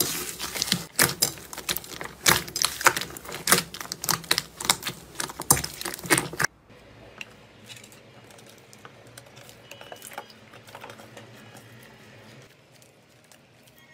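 Purple slime with foam beads being kneaded and squeezed by hand, giving dense, rapid crackling and popping. It stops abruptly about six and a half seconds in, leaving only faint, soft sounds.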